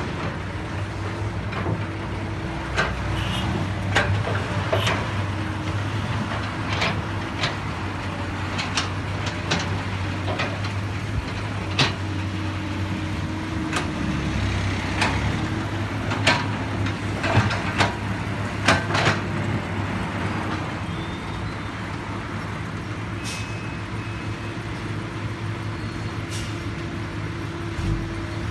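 Komatsu PC200 hydraulic excavator's diesel engine running steadily, with frequent sharp metallic clanks and knocks that thin out over the last third.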